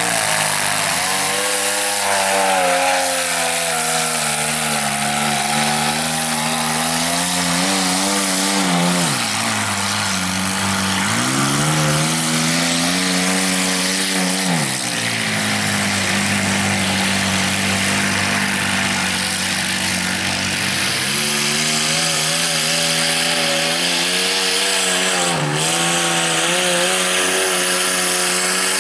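A mud truck's engine revving hard at high RPM as it churns through a mud pit, its pitch wavering and dropping sharply then climbing back several times, over the hiss and spatter of tyres slinging mud.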